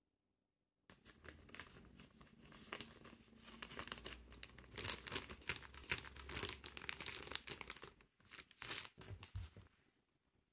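Thin clear polyethylene plastic bag crinkling as it is handled in the hands. It starts about a second in, is loudest in the middle, and dies away just before the end.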